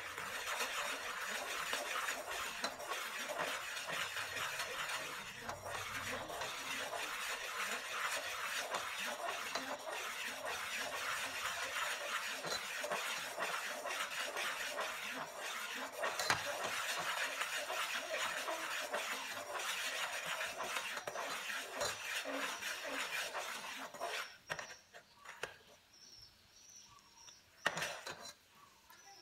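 Metal ladle scraping and clinking around a stainless steel pot while stirring energy drink being boiled down to syrup, over a steady hiss. Most of it drops away about 24 seconds in, leaving a few faint high chirps.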